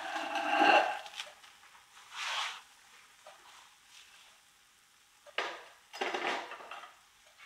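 Kitchen handling noises: a few short clatters and scrapes of a plate and utensil as fried crumpets are lifted from the pan onto a paper-towel-lined plate, over a faint sizzle from the frying pan.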